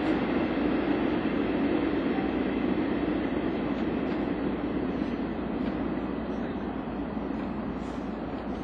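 Electric locomotive moving slowly through a rail yard: a steady rumble from its running gear and equipment, easing off slightly toward the end.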